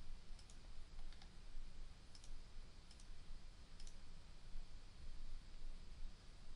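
Computer mouse clicking about five times, some clicks in quick pairs, over a faint steady low hum.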